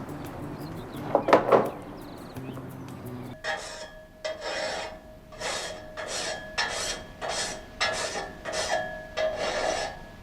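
Hand file rasping across the teeth of a frame saw blade in steady strokes, about two a second, with the steel blade ringing under the file: the blade being resharpened. This begins about three and a half seconds in, after faint music and a short loud noise about a second in.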